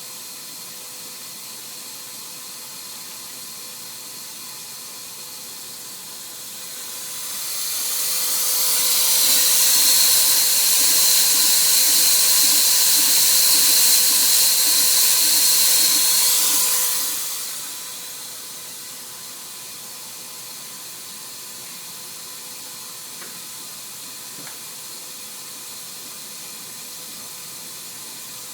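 Cameron CNC micro drilling machine running a drilling cycle on a .003" tool: a steady machine hum and hiss, with a loud hiss and high steady whine that swells in about seven seconds in, holds for about ten seconds and then dies away.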